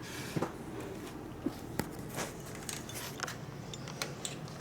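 Light, irregular clicks and clinks of small metal parts being handled: a steel washer or valve-spring collar being picked up and tried in place, several separate taps a fraction of a second apart.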